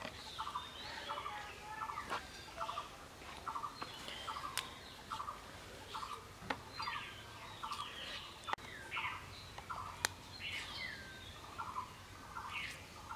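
Birds calling: a steady run of short calls about twice a second, with higher, falling chirps over them. A few sharp clicks stand out, from taro stems being cut and peeled on a boti blade.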